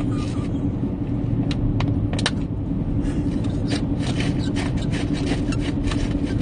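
Road and engine noise heard inside a moving car's cabin: a steady low rumble with a constant hum, broken by scattered light clicks, more of them in the second half.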